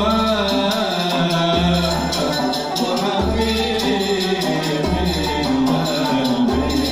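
Live Arab takht ensemble music: melodic instruments playing together in a traditional Egyptian dawr, with a frame drum's jingles keeping time.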